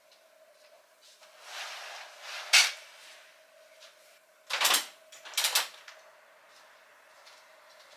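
Curtains being drawn open by hand: fabric swishing and the runners sliding along the rail. A longer swish comes first, then two short, louder pulls about a second apart.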